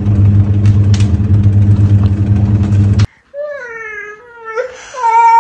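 A small electric motor hums steadily for about three seconds and cuts off abruptly. Then a toddler cries, wailing calls that rise and fall in pitch.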